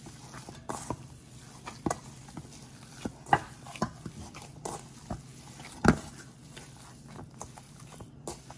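Ground pork being kneaded by a gloved hand in a metal bowl: irregular wet slaps and knocks of the meat against the bowl, the two loudest about a third and two thirds of the way through, over a steady low hum.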